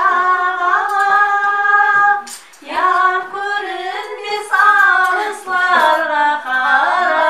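A woman singing a Karakalpak folk song in long, held, ornamented notes, breaking off for a breath about two and a half seconds in.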